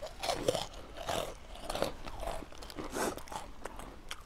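A person chewing a crisp white cracker: a string of crunches, about one every half second.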